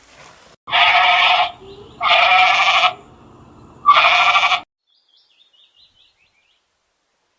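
Goat bleating: three loud, harsh bleats, each just under a second long, with faint high chirps after them.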